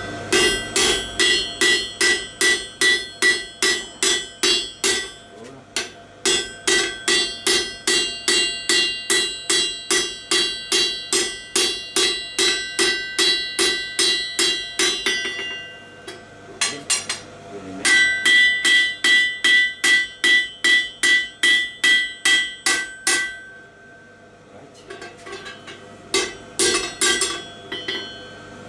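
Hand hammer striking the glowing end of a stainless-steel crowbar bar on an anvil, in steady runs of about three blows a second, each blow with a high metallic ring. The runs break off twice for a second or two, and the last few blows are lighter.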